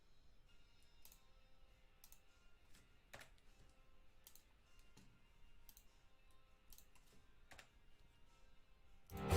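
Faint scattered clicks, a few seconds apart, over very faint steady tones. Loud music starts suddenly near the end.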